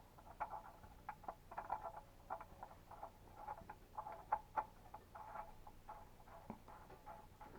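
Faint, irregular small clicks and scratches, several a second, of an oil drain plug being threaded by hand into the engine's oil pan drain hole after the old oil has drained out.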